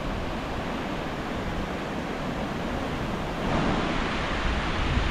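Steady rush of sea surf on a beach, with some wind on the microphone, growing a little louder about three and a half seconds in.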